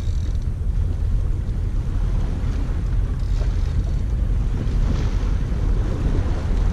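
Steady wind noise buffeting the microphone, a deep fluttering rumble, over the wash of sea water.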